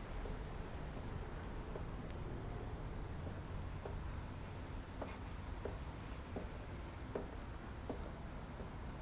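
Paintbrush strokes scratching and brushing across a canvas, over a steady low background rumble.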